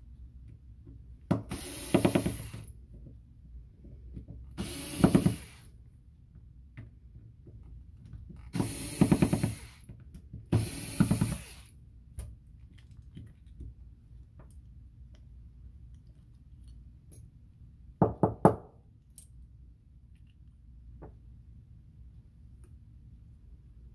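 Small cordless electric screwdriver running in four short bursts of about a second each, driving the screws of a Penn 113 fishing reel's side plate. Later come two sharp knocks.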